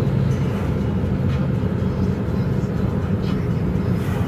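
Steady road and engine noise inside the cabin of a moving car, a low even rumble.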